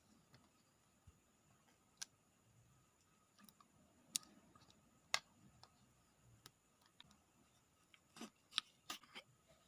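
Slime being handled, giving scattered sharp clicks and pops, with a quick cluster of them near the end.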